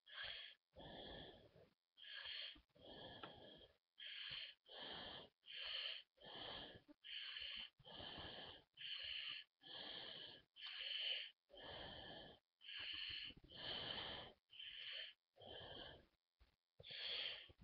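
Pen tip scratching across paper in short strokes, about one stroke a second, as a drawing is traced over in pen. There is dead silence between the strokes.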